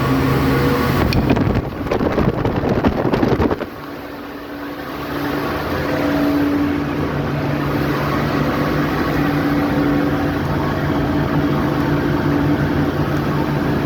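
Electric arc welding, crackling steadily for about two and a half seconds starting about a second in, over the steady hum of a running machine whose pitch rises a little after the welding stops.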